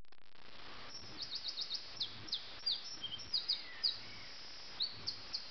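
Common nightingale singing: quick runs of short, high, downward-sliding whistled notes, broken by brief pauses, over a steady background hiss.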